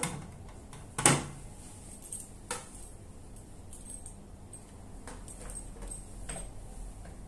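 Foot switch and its cable being handled and plugged into the back of a 400-watt electrosurgical unit: a few clicks and knocks, the sharpest about a second in, then fainter ones.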